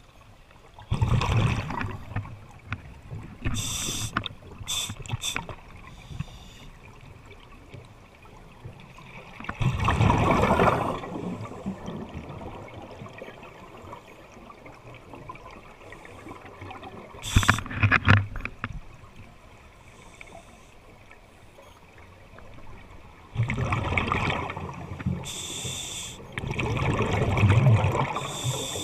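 Scuba diver breathing through a regulator underwater: exhaled bubbles rush out in loud bursts every several seconds, with short hisses between them.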